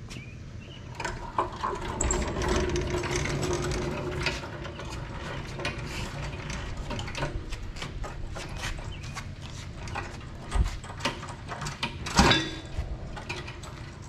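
A vintage Maytag wringer washer on casters being rolled across a concrete floor, its metal tub, frame and mounted engine rattling and clattering with many small clicks, and a sharp bang about twelve seconds in.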